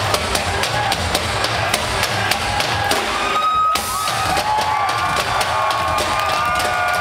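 Live rock band playing, recorded from the crowd, with the drum kit's beat to the fore. The drums drop out briefly about halfway, and sliding high tones that bend up and down carry on over the rest.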